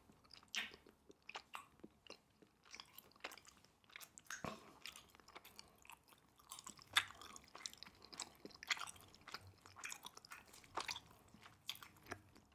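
A person chewing a mouthful of food close to the microphone: quiet, irregular mouth clicks and smacks, a few a second.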